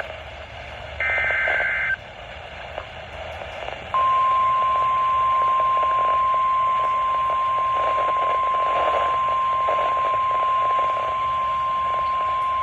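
NOAA Weather Radio emergency alert coming over a weather radio with static hiss. First the end of the SAME digital header: the tail of one screechy two-tone data burst, then a full burst about a second in. After a short gap of static, the steady Warning Alarm Tone, a single high beep, starts about four seconds in and holds for about nine seconds.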